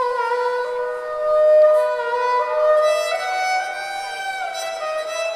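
Fiddle playing a melody of long held notes over a live Irish rock band, stepping from pitch to pitch with a downward slide about four and a half seconds in.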